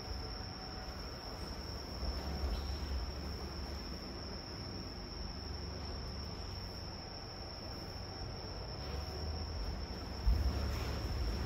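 Crickets trilling in one steady, unbroken high-pitched tone over a low rumble of the hall, with a soft low thump about ten seconds in.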